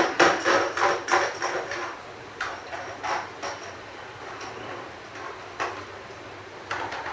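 A quick run of sharp knocks, about three a second, fading over the first two seconds, then a few scattered single knocks.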